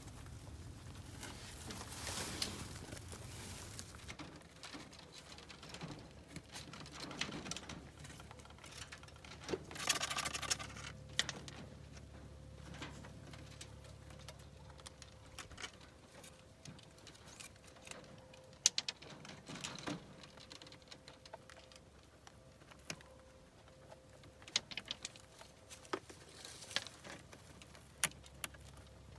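Young rabbits shuffling on a wire-mesh cage floor and nosing at pellets in a metal feeder: faint patter with scattered light taps, scratches and sharp clicks, and a longer rustle about ten seconds in.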